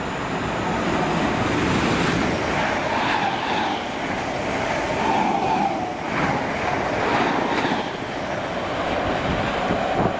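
Electric passenger train running on the rails: a dense rumble of wheels on track, with a whine above it that wavers up and down.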